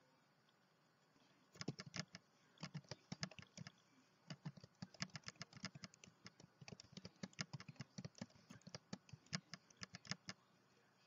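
Typing on a computer keyboard: uneven runs of quick key clicks with short pauses, starting about a second and a half in and stopping shortly before the end.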